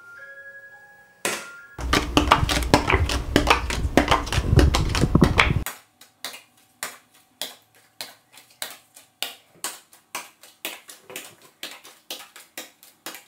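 Playing cards being flicked and slapped against a laminate tabletop: a dense, loud clatter of many quick hits with a low rumble for about four seconds, then a steady run of single card taps, about two to three a second.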